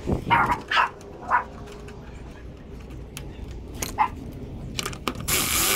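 A dog barking three times in quick succession near the start, with scattered light clicks and knocks of metal parts being handled. A hiss about a second long near the end.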